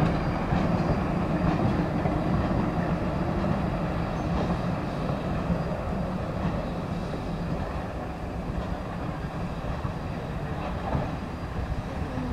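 Steam-hauled train of flatcars and a caboose rolling past on the track and pulling away, its sound fading gradually as it goes.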